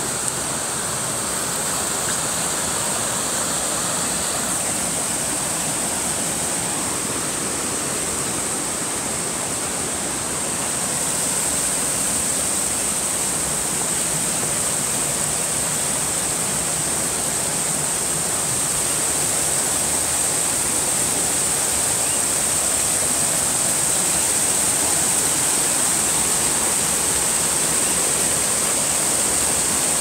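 Rushing water of a rocky stream spilling over small cascades and around boulders, a steady wash of noise that grows a little louder about eleven seconds in. A steady high-pitched whine runs above the water throughout.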